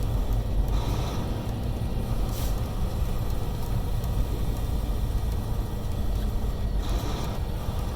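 Inside a semi-truck cab: steady low rumble of the diesel engine and road as the truck slows on an exit ramp, with the engine brake set to high.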